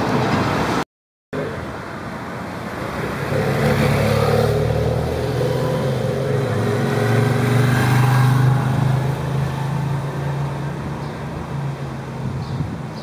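A motor vehicle passing on the road: a low engine drone that builds, is loudest about eight seconds in, then fades away.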